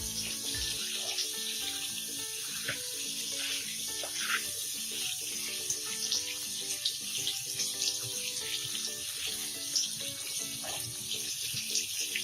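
Cut vegetables (potato, pointed gourd and drumstick) frying in hot mustard oil in a kadai: a steady sizzling hiss with scattered small crackles, over soft background music.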